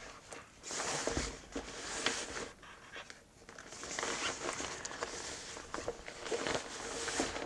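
Rustling and soft knocks of recording gear being handled and packed into a bag, in irregular bursts with a short pause about halfway.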